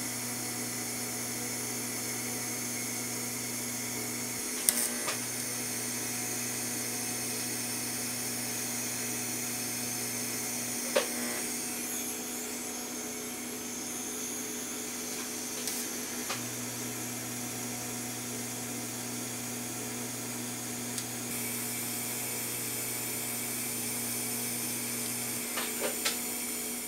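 Miller Syncrowave 250 TIG welding arc buzzing steadily on a steel subframe in three long runs with short breaks between them, over a constant machine hum, with a couple of light clicks.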